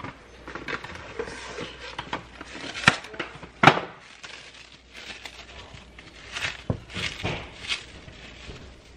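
Plastic cling wrap crinkling and rustling as it is handled and wrapped around a log of cookie dough, in irregular crackles with a few sharper snaps, the loudest about three and a half seconds in.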